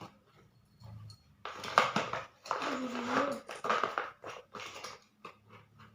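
Rustling and light knocking of a hair straightener and its cord being packed back into its cardboard box, in irregular bursts through the middle of the clip.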